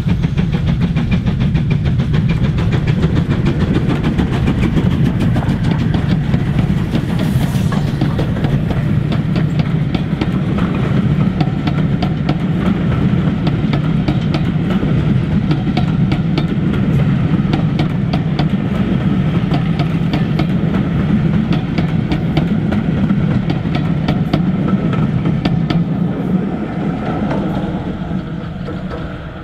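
Two GWR 4-6-0 steam locomotives, Modified Hall 7903 and King class 6023, double-heading a passenger train past under steam: a steady run of exhaust beats and running gear, then the coaches rolling by on the rails, fading away near the end.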